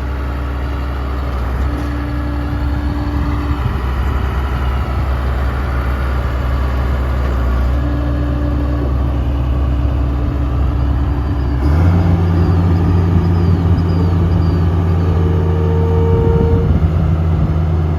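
Komatsu D41P-6 bulldozer's diesel engine running steadily while the hydraulics move the blade, then revving up and running louder about two-thirds of the way through. A thin steady whine comes and goes over the engine.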